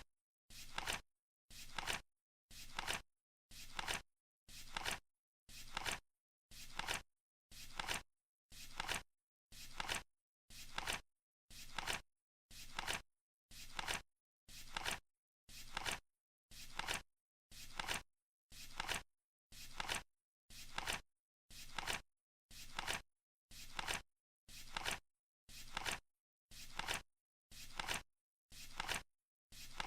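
Flip-clock countdown sound: a short papery flap, about half a second long, once every second as the digits turn over, with dead silence between the flaps.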